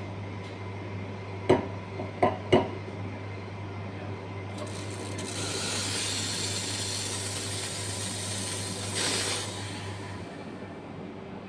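Automatic coffee machine working: a steady motor hum with three sharp clicks in the first few seconds, then a loud hissing rush from about five to nine and a half seconds in, after which the hum stops.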